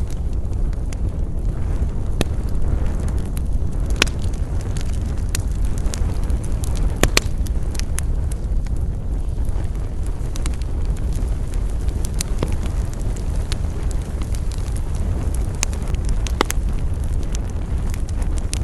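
Wood campfire burning with a steady low rumble of flames and irregular sharp crackles and pops, the strongest about four and seven seconds in.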